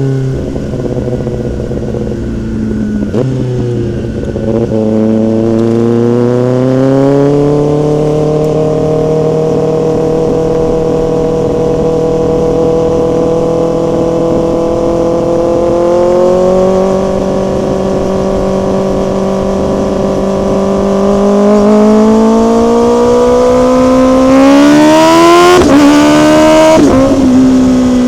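Motorcycle engine under way: its pitch dips about three seconds in, climbs and holds steady through the middle, then climbs again as it is revved harder, with a rough burst of rev near the end before settling.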